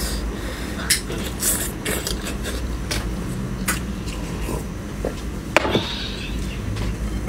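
Close-up eating sounds of someone chewing braised pork knuckle: scattered wet clicks and smacks of mouth and fingers on the meat, over a steady low hum.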